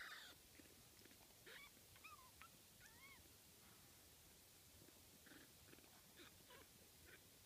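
Young kittens mewing faintly: a few short, high mews that rise and fall in pitch, about two and three seconds in, with faint rustling of the kittens moving on a fleece blanket later on.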